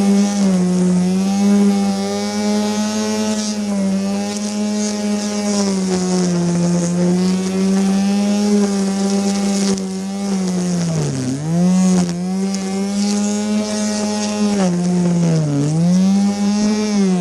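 Bosch EasyGrassCut 23 280-watt electric grass trimmer running flat out with a steady high whine. Its pitch sags a little now and then and drops sharply twice in the later part, bogging down under load as the line cuts, then recovering.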